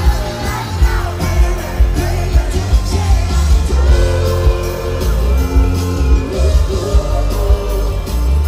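Live pop band and singer performing in a stadium: heavy bass, a steady beat and sung melody.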